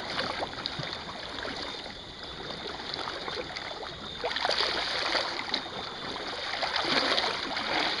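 Small sea waves washing over a low concrete slab at the water's edge and trickling off it, with a louder surge about four seconds in as a wave covers the slab, and another near the end.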